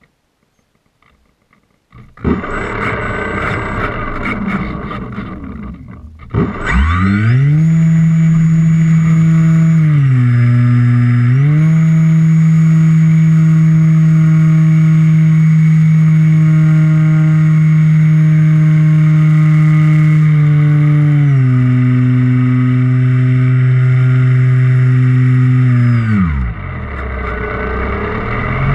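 Electric motor and propeller of a GWS Slowstick RC plane. After a rough, noisy start the motor rises to a steady pitched hum that dips in pitch about ten seconds in and again about twenty-one seconds in as the throttle changes, then falls away near the end and starts to rise again.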